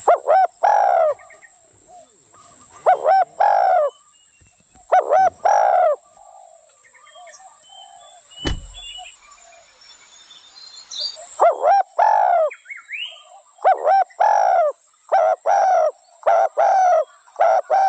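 Spotted dove cooing: short groups of repeated cooing notes, a pause of several seconds, then a quicker run of cooing phrases. A single sharp knock about halfway through.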